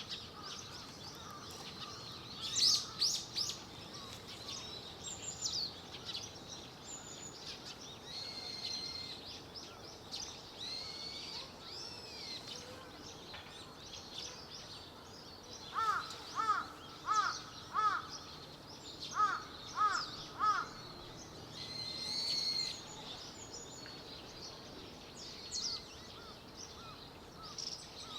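Wild birds calling and chirping with high, short notes over a steady background hiss. Around the middle, a louder bird gives two quick series of three or four harsh, arched calls.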